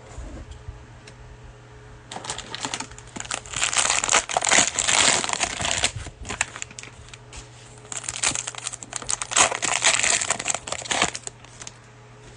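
Cellophane wrapper of a trading-card cello pack crinkling as it is handled and opened, in two spells of a few seconds each.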